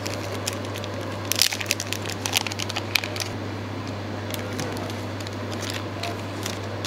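Small plastic lure packet crinkling and crackling in the hands as a soft-plastic lure is pulled out of it, densest in the first half, over a steady low hum.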